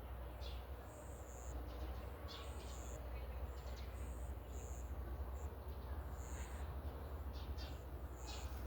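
Rural outdoor ambience: short, high chirps repeat irregularly, about twice a second, over a steady low rumble.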